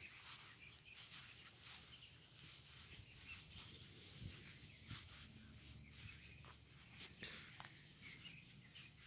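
Faint outdoor ambience with scattered small-bird chirps and soft footsteps on grass and pavement.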